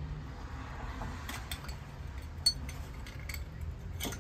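A few irregular metallic clinks and taps of hand tools against metal in an engine bay, the sharpest about halfway through, over a steady low hum.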